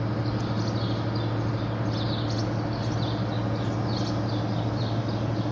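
A steady low hum from the concrete pump's running machinery. Over it come short, high chirps, repeated several times a second, which sound like small birds calling.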